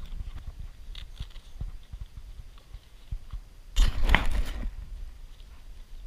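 Small clicks and knocks of a fish and tackle being handled on a kayak, over a low rumble of wind on the microphone, with a louder rushing burst of noise about four seconds in.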